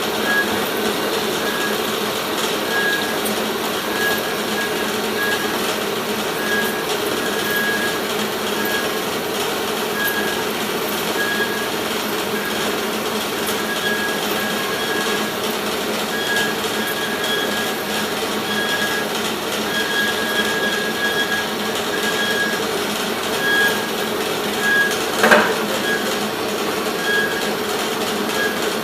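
Amada HA-250W horizontal band saw running: a steady mechanical whirr with a high squealing tone that keeps cutting in and out, and a single knock about 25 seconds in.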